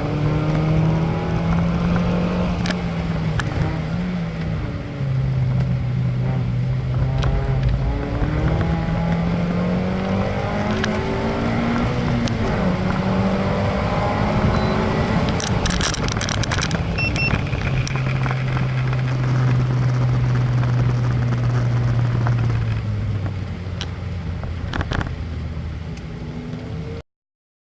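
Small race vehicle's engine heard on board through a practice lap, its pitch repeatedly climbing under acceleration and dropping for corners, over a haze of wind noise. It cuts off suddenly near the end.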